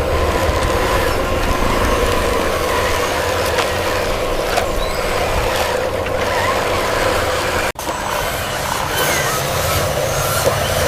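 Small electric motors and gears of a homemade RC construction toy running with a steady drone and whine. The sound drops out abruptly for an instant about three-quarters of the way through.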